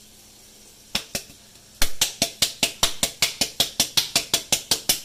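Cookware being tapped: two single knocks, then a quick, even run of sharp taps, about six a second, as a bowl or utensil is knocked against the pot.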